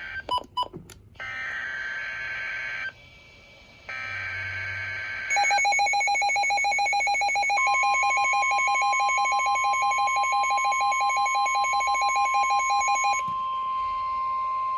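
Emergency Alert System alert on NOAA Weather Radio: two bursts of the digital SAME header data, then a weather radio receiver's rapid electronic beeping alarm from about five seconds in. About two seconds later the steady 1050 Hz NWR warning alarm tone joins it and carries on after the beeping stops near the end.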